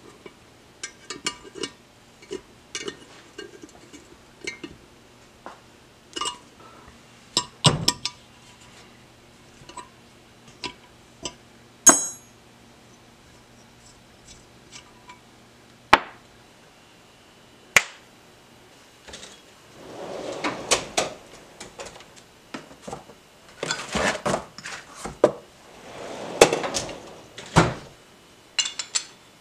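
Scattered metallic clinks and taps of an open-end wrench and steel studs being handled against a cast aluminium motorcycle crankcase, with a single ringing clink about twelve seconds in. A denser stretch of clattering handling noise fills the last third.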